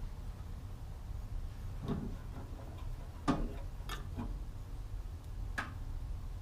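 A few scattered light clicks and knocks, the loudest about three seconds in, over a low steady hum.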